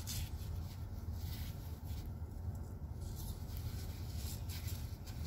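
A few faint clicks and scratches of a pet nail clipper trimming a kitten's claws, with light handling rustle, over a low steady hum.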